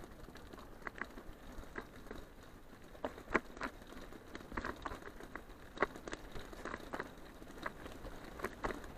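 Bicycle rolling along a leaf-strewn dirt track: a low steady tyre rumble with scattered irregular clicks and crackles.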